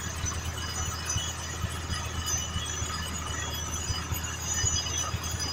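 Truck-mounted borewell drilling rig running steadily while drilling, a constant low drone, with a scatter of faint high clinks over it.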